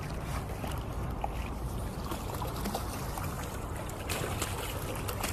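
Shallow water splashing and sloshing as a small dog wades through it across wooden boards, a steady wash with small scattered splashes.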